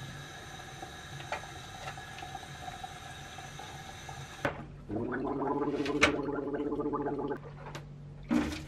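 Kitchen tap running into a stainless-steel sink while hands are washed. About five seconds in, a person gargles water for a couple of seconds.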